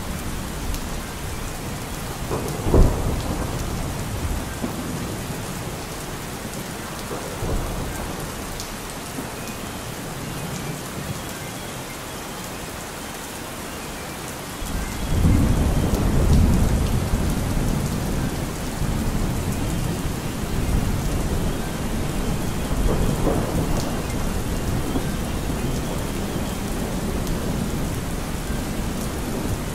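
Steady rain with thunder: a sharp crack about three seconds in, a smaller rumble a few seconds later, then a long heavy rumble starting about halfway through and another swell near the end.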